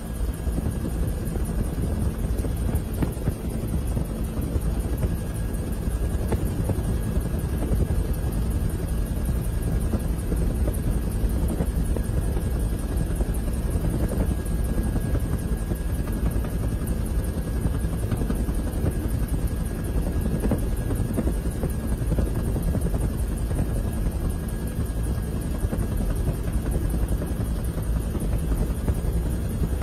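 Helicopter running steadily, heard from inside the cabin: a loud, even drone of engine and rotor with a thin steady whine above it.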